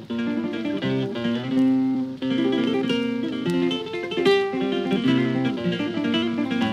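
Acoustic guitar music, plucked notes and strummed chords.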